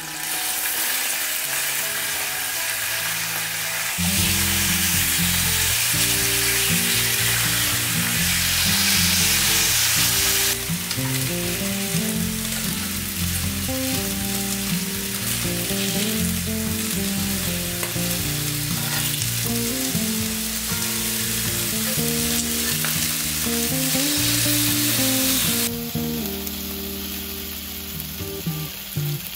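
Boneless chicken thigh pieces sizzling in oil on a hot cast-iron griddle, a steady loud frying hiss that eases somewhat near the end. Background music with stepped notes plays underneath.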